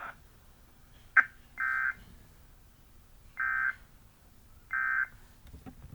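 Emergency Alert System end-of-message signal: three short, identical bursts of data tones, each about a third of a second and spaced a second or so apart, marking the end of the alert. A sharp click comes just before the first burst.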